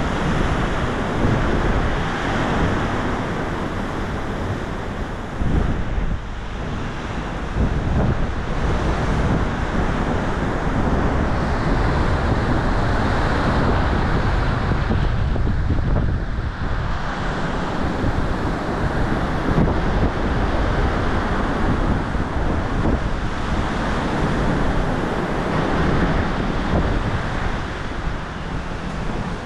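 Wind blowing across the open deck, rumbling on the microphone, over the steady rush of the sea along the ship's side.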